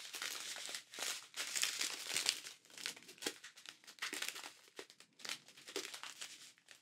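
Small plastic zip bags of diamond painting drills crinkling as they are handled and shuffled, in irregular bursts of crackling.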